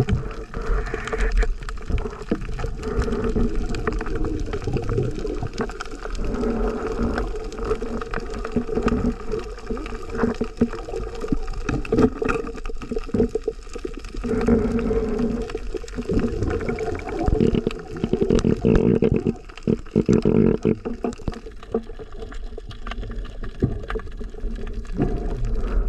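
Water sound heard by a camera underwater: muffled sloshing and bubbling from the diver's movement, with many small clicks throughout.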